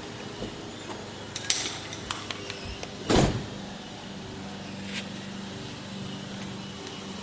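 Light clicks and knocks of parts and tools being handled, with one louder, short thump about three seconds in, over a faint steady hum.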